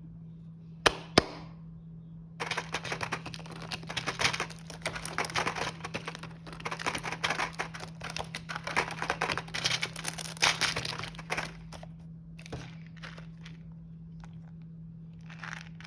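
Two sharp clicks about a second in, then plastic snack packaging crinkling and crackling as it is handled and opened, thinning to a few scattered taps before starting again near the end. A steady low electrical hum runs underneath.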